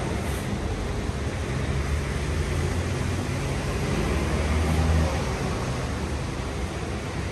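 Steady hiss of light rain over a city park, with a low rumble of city traffic underneath that swells about four seconds in and eases off at five.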